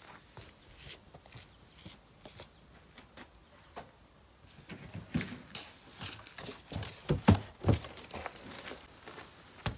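Footsteps on a dirt path and the hollow knocks and thumps of plastic garbage bins being picked up and handled. The sounds are faint at first and grow louder about five seconds in, with the heaviest thumps a couple of seconds later.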